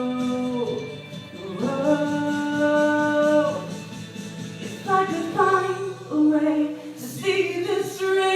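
A female solo voice singing long held notes without clear words, moving to a new pitch every second or two, over a steady musical accompaniment.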